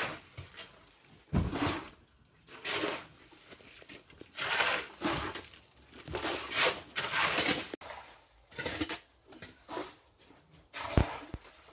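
Hand work on a concrete pour: a run of rough scraping and rattling noises, about one every second or so, with sharper knocks about a second and a half in and near the end.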